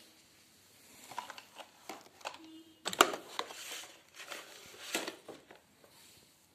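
Hard plastic toys being handled and knocking together: a run of light clicks and knocks with rustling, the sharpest click about three seconds in.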